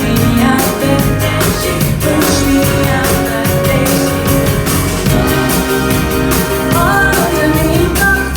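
Live band playing a rock song, with a singing voice carrying the melody over a steady beat.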